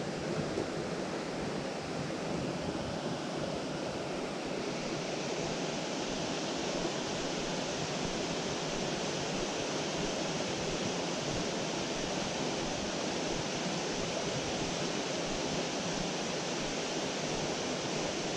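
Mountain stream rushing: a steady, even wash of flowing water, turning slightly hissier about four seconds in.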